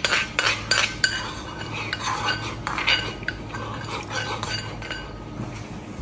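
A metal spoon clinking and scraping against a small glazed bowl as food is spooned from it, with a quick run of sharp clinks in the first second, then softer scraping and eating sounds that die down near the end.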